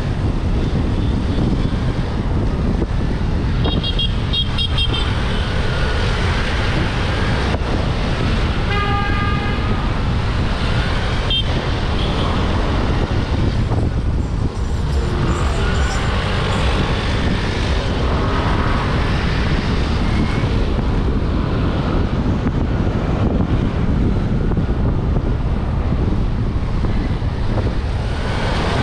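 Wind rush on the microphone and road noise from a scooter moving through slow traffic, with vehicle horns tooting: a quick run of short beeps about four seconds in and a longer horn note about nine seconds in.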